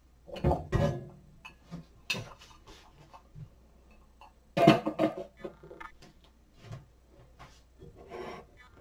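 Irregular knocks and clinks of cookware and utensils being handled, some ringing briefly; the loudest cluster comes about halfway through.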